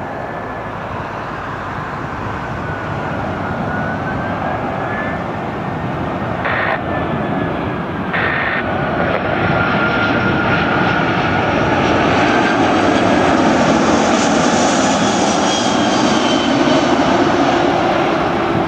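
Airbus A340-300's four CFM56 jet engines on final approach to land: a steady jet rumble with a thin whine that slowly wavers in pitch. It grows louder as the airliner comes closer and peaks in the second half.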